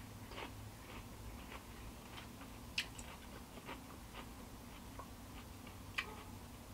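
Quiet eating: faint, irregular mouth clicks and chewing sounds, the sharpest about three seconds in and again near the end, over a low steady hum.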